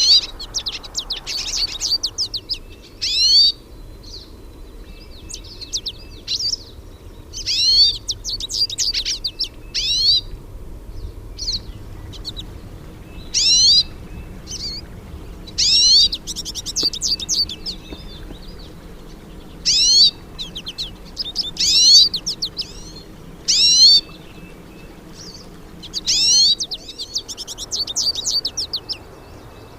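Hooded siskins (pintassilgo) singing: repeated fast twittering phrases of quick, high, downward-sweeping notes, about one phrase every two seconds.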